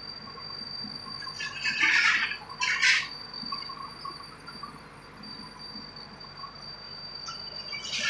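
Short bursts of metallic clinking and rattling, about two seconds in, again at three seconds, and once more near the end, over a steady high-pitched whine.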